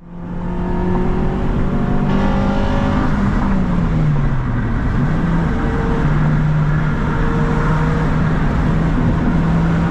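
Acura RSX Type S's 2.0-litre four-cylinder engine running while driving, with road noise; its pitch drops a few seconds in and then holds steady.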